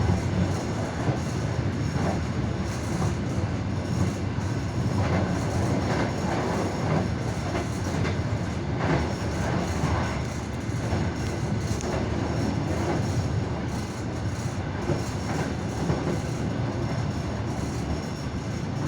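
Express train wheels clattering over the rails: a steady low rumble with recurring short knocks from the rail joints.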